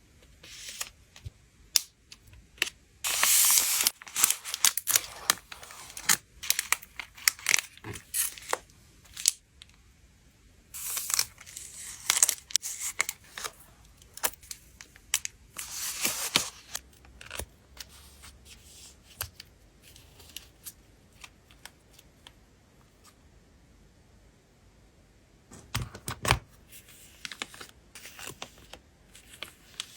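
Photocard packing by hand: plastic sleeves and wrapping crinkle and rustle, with several longer tearing sounds, the loudest about three seconds in and again around eleven and sixteen seconds in, among scattered light clicks and taps.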